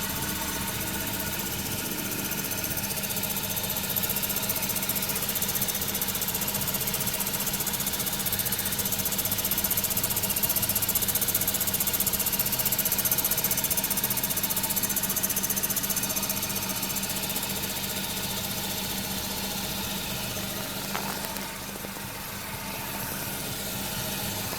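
Ford Focus Mk3 engine running steadily, with several steady tones over it. The owner suspects an abnormal noise from the A/C compressor.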